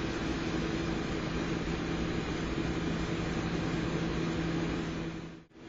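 Steady whirring hum of a powered-up, partly disassembled Sony Vaio laptop. It cuts out briefly near the end.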